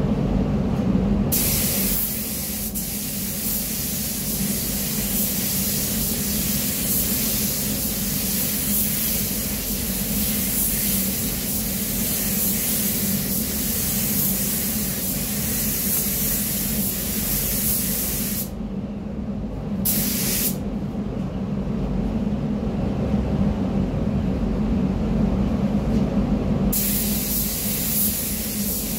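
Gravity-feed compressed-air paint spray gun hissing in long spraying passes. It cuts out briefly for one short burst about two-thirds of the way in, then resumes and stops near the end. A steady low hum runs underneath.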